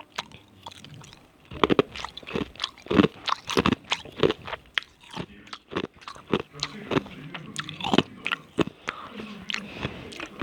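Ice being bitten and crunched between the teeth, a quick irregular run of sharp cracks starting about a second and a half in.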